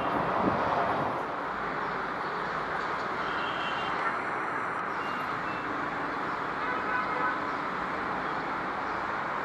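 Airbus A320 jet airliner engines, a steady rush of noise. About a second in the sound steps down slightly, then stays even.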